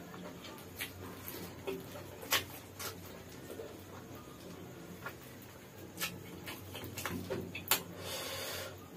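Eating with the fingers from a banana leaf: fingers picking apart crisp fried chicken, with scattered sharp crackles and clicks. A short rustling stretch comes near the end.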